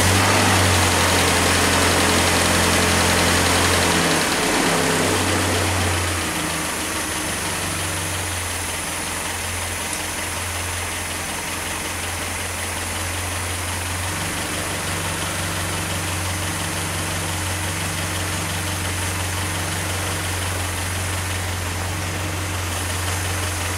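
Freshly rebuilt four-cylinder petrol engine of a 1961 Land Rover running steadily at idle, a little louder for the first few seconds.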